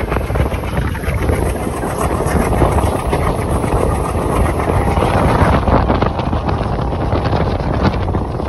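Passenger train running at speed, heard from an open coach door: a steady rumble and clatter of wheels on the rails, with wind buffeting the microphone.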